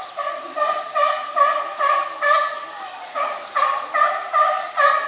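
A bird calling in a long series of short, evenly repeated calls, about two a second.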